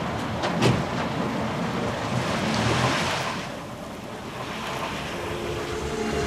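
Car driving off, its engine and tyre noise swelling and then fading, after a single thump about half a second in. Vehicle noise rises again as soft music comes in near the end.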